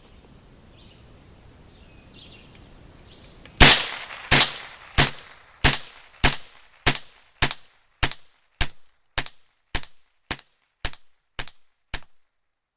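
Mossberg 715T .22 LR semi-automatic rifle firing about fifteen shots in steady succession, a little under two a second, starting a few seconds in and stopping near the end. The rifle cycles each round without a jam, firing until the magazine is empty.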